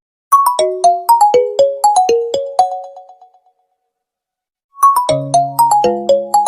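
Mobile phone ringtone: a quick melody of short, bell-like notes, about a dozen in under three seconds, dying away. After a pause of about a second and a half it starts over, now with low bass notes under the melody.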